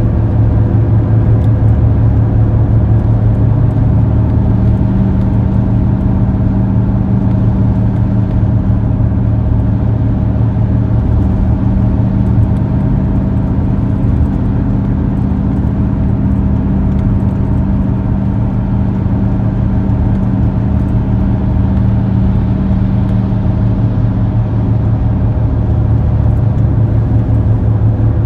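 Car moving at steady speed: a continuous low drone of engine and road noise with a steady hum, unchanging throughout.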